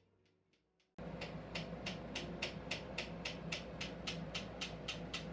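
Traditional hand-tapped tattooing: a toothed tattoo comb struck with a striking stick, tapping into the skin at an even pace of about five taps a second. It starts abruptly about a second in, as background music fades away.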